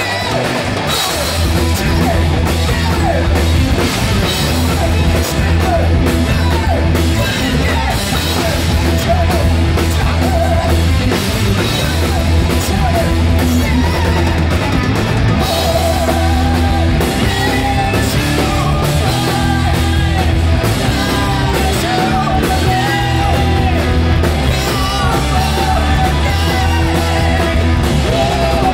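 Live rock band playing loud: a singer belting into a microphone over distorted electric guitars, bass and a drum kit.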